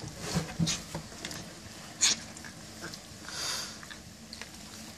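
German Shepherd puppies eating dry kibble from a stainless steel puppy feeding pan: scattered crunching and clicks of kibble and teeth against the metal, with one sharper clink about two seconds in.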